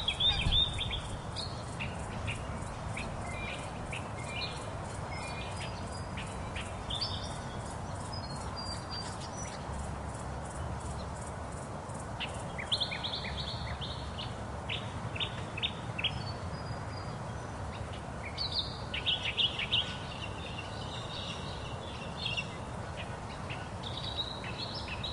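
Birds chirping and calling in short bursts of high, quick notes, busiest at the start, about halfway through and again toward the end, over a steady low background rumble.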